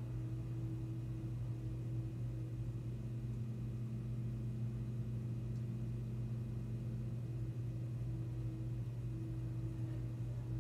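Steady low hum with a fainter higher tone above it: room tone.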